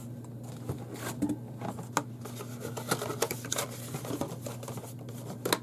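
Irregular clicks and taps of small plastic acrylic paint bottles knocking together as they are lifted out of a cardboard box and set down on a table, with a little cardboard rustle. A steady low hum runs underneath.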